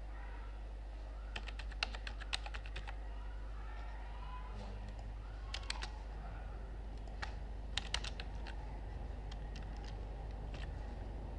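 Computer keyboard being typed on in several short bursts of quick key clicks, over a steady low hum.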